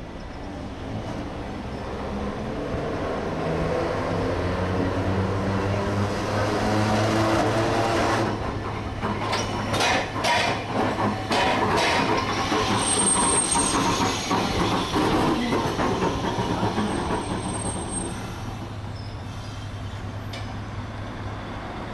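Iyotetsu city tram (car 68) approaching and pulling in to a stop, its running noise growing louder over a steady low hum. A run of sharp clacks comes as the wheels cross the track joints near the middle, and two brief high wheel squeals follow as it slows. The noise eases off near the end as it halts.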